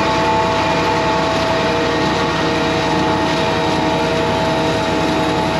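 Farm tractor running steadily, a constant engine hum with a steady high whine over it.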